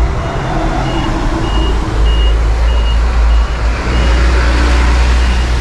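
Vehicle reversing alarm beeping steadily about twice a second over a loud, low engine rumble and street traffic.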